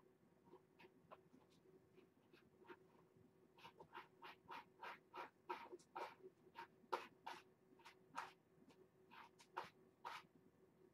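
A cat scratching litter in a litter box, raking it in quick, uneven strokes to cover its waste. The faint scratching comes in a busy run from about four to seven seconds in, with scattered strokes before and after.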